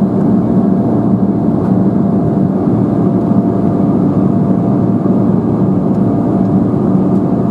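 Cabin noise of an Embraer 175 in flight: the GE CF34 turbofan engines and airflow make a steady drone with a faint constant whine.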